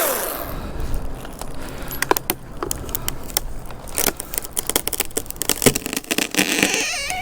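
Irregular crackling and snapping of twigs and leafy branches as a cut branch comes down through the tree.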